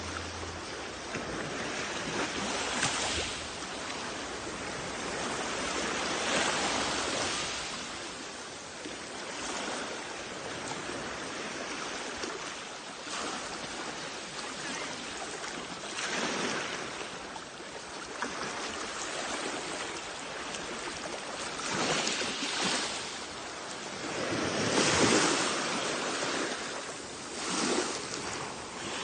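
Sea waves washing onto a shoreline: a steady rush of surf, swelling as each wave breaks every few seconds, the biggest about 25 seconds in.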